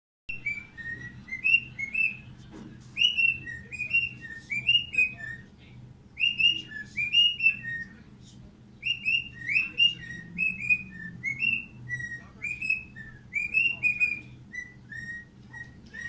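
Cockatiel whistling its song: phrases of short, clear whistled notes that swoop up and down, broken by a few short pauses.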